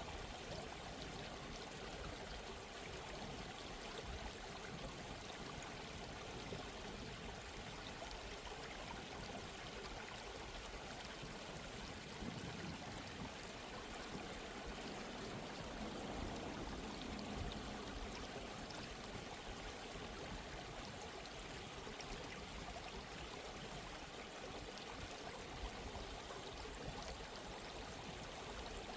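Running water, a steady, even flow like a stream.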